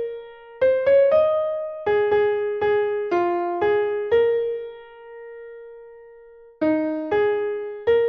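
A single-line melody played note by note in a computer-generated piano sound from notation software playback, slow and unaccompanied. About four seconds in, one note is held and fades away for a couple of seconds before the tune picks up again.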